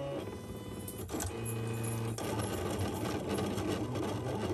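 Silhouette Cameo electronic cutting machine cutting a sheet of sticker paper: its motors whir as the blade carriage and rollers move, in runs of steady tones that change pitch several times, then settle into a rougher, even whir.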